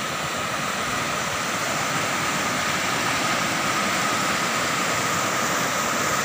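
Floodwater rushing out of culvert pipes and churning through a concrete channel: a steady, unbroken rush of white water.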